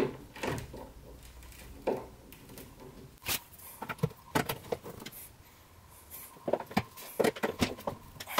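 Irregular clicks and knocks of chipboard wardrobe panels and their metal fittings being handled and adjusted, with a quicker run of clicks near the end as a screwdriver works at a fitting.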